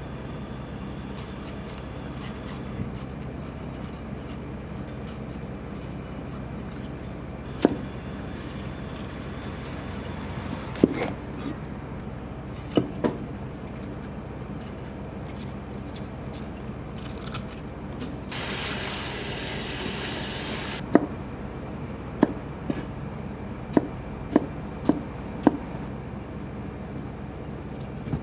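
Chef's knife cutting bell peppers on a plastic cutting board: a few single knocks of the blade meeting the board, then a quicker run of cuts near the end, over a steady low hum. A hiss of about two and a half seconds in the middle.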